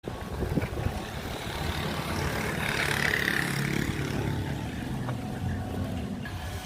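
Motor vehicle engine running steadily.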